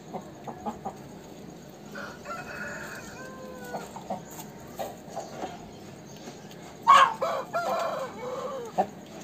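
Aseel roosters crowing: a fainter crow about two seconds in, then a much louder crow about seven seconds in.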